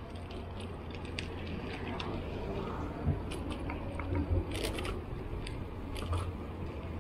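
A road bicycle rolling along city asphalt: a steady low rumble of tyres and moving air, with scattered sharp clicks and ticks and a few small bumps from the bike over the pavement.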